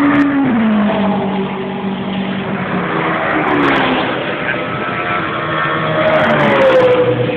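GT race car engines on the circuit, several cars going by one after another at speed, each engine note falling in pitch as it passes.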